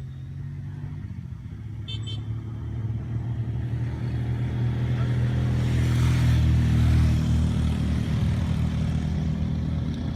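A motor vehicle's engine running steadily, growing louder to a peak about six or seven seconds in and then easing off. A brief high chirp sounds about two seconds in.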